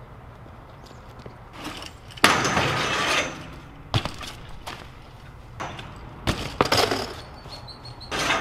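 BMX bike crashing down onto concrete after a bailed handrail attempt: a cluster of loud metallic clattering impacts about two-thirds of the way in, with a loud rushing scrape about two seconds in and a sharp click at about four seconds.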